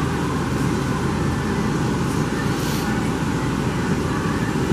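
Steady, even rushing noise of room ventilation running, with a brief rustle nearly three seconds in.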